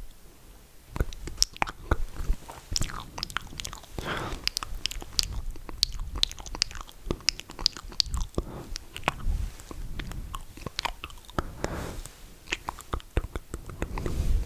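Close-miked wet mouth sounds: rapid clicks and smacks of lips and tongue, starting about a second in, with a few short breathy stretches between them.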